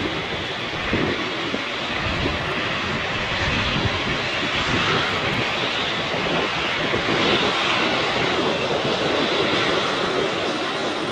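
Jet airliner's engines heard as a steady, dense noise as the aircraft passes, swelling slightly towards the middle. Wind buffets the microphone underneath.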